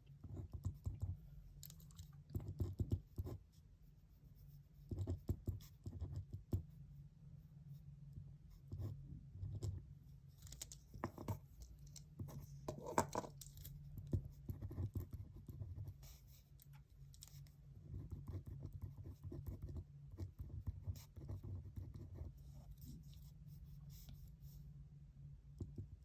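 Handwriting on paper: irregular runs of faint scratching strokes, over a steady low hum.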